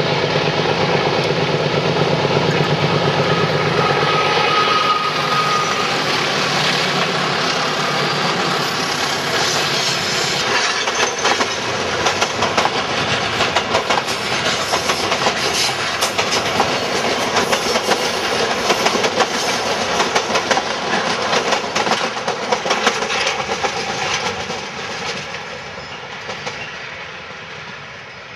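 GE diesel-electric freight locomotives, a class 33 (U20C) leading two class 35s (U15C), running past close by, with loud engine noise for the first few seconds. The wagons then pass with a rapid clickety-clack of wheels over rail joints, which fades as the train draws away near the end.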